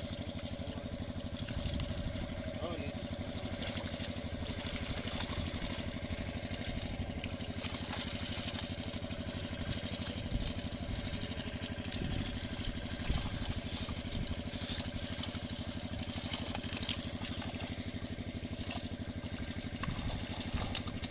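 A small engine running steadily with a fast, even beat, joined by faint scattered voices.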